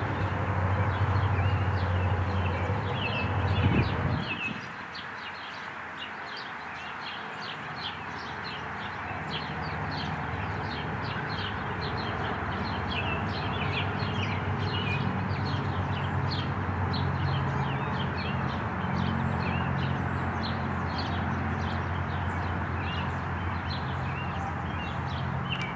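Small birds chirping over and over in the background. Under them runs a low hum that is loudest for the first four seconds, drops away sharply about four seconds in, then comes back more faintly.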